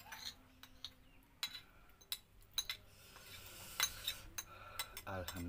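Metal spoon clinking and scraping against a small ceramic bowl of sambal in a series of scattered sharp clicks, along with eating sounds. Near the end a voice starts a drawn-out hum.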